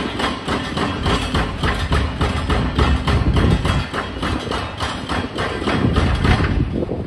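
Demolition excavators working among concrete rubble: diesel engines running under a dense clatter of rapid knocks and banging debris. A heavier low rumble swells about halfway through and again near the end.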